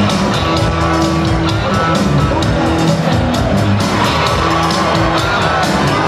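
Loud music playing, with sustained tones over a regular beat.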